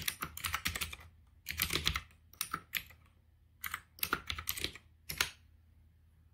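Typing on a computer keyboard: quick runs of key clicks in four or five bursts. The typing stops with a single key press a little after five seconds in, the Enter key that runs the shutdown command.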